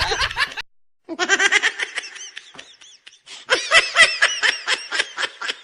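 Laughter sound effect: two bursts of rapid, high-pitched laughing, the second longer and trailing off in evenly spaced ha-ha pulses.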